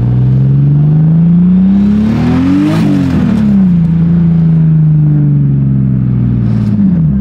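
Turbocharged BMW M54 straight-six accelerating: the revs climb for about three seconds, then drop quickly with a brief hiss. The engine then runs at steadier, lower revs and falls off again near the end.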